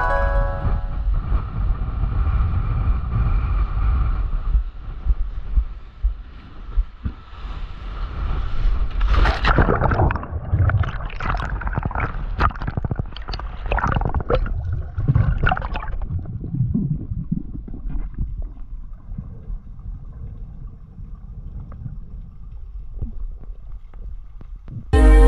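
Ocean waves washing against rocks with wind buffeting the microphone, then a run of sharp splashes for several seconds as a swimmer enters the sea. After that the sound turns dull and muffled, the camera's microphone under water.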